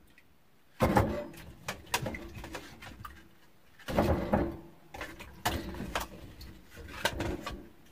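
A string of knocks and clatter from things being handled, with two busier, louder spells, one about a second in and one about four seconds in.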